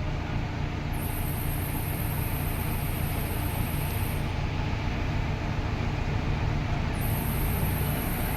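Heavy diesel engine of construction or farm machinery running steadily, with a high hiss that comes and goes twice.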